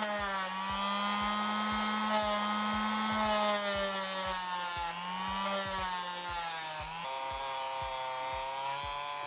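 Handheld rotary tool with a small abrasive wheel running at high speed, grinding brazing filler off a thin metal switch contact spring to make it springy again. Its steady whine sags and recovers in pitch a few times as the wheel bears on the work.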